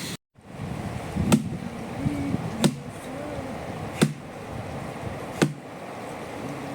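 Axe chopping firewood: four sharp strikes, one about every second and a half, with faint voices murmuring underneath.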